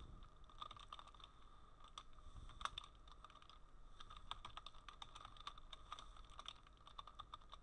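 Faint typing on a computer keyboard: a quick, irregular run of keystrokes, one a little louder a few seconds in.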